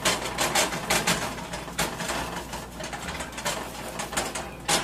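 Slotted spatula scraping and tapping against a frying pan while loosening a thin batter shell, a dense run of irregular scrapes and clicks.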